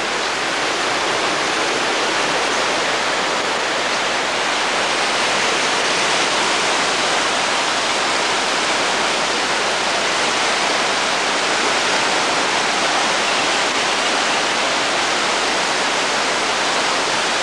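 Steady rushing of water during a thunderstorm, even and unbroken.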